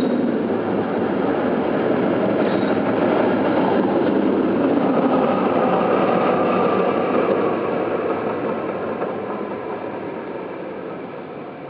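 Steady rumbling noise of a passing vehicle, loud at first and fading away gradually over the last few seconds.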